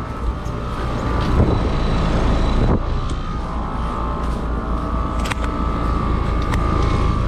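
Outdoor air-conditioning condenser unit running: a steady mechanical hum of compressor and fan, with a low rumble and a few held tones.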